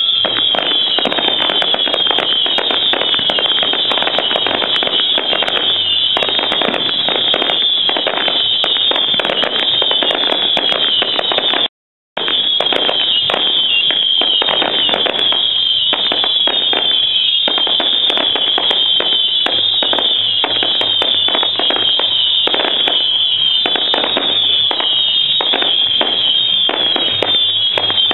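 A fireworks display: a dense, continuous crackling and popping of firework bursts, with repeated short, high, falling whistles over it. The sound drops out completely for a moment about halfway through.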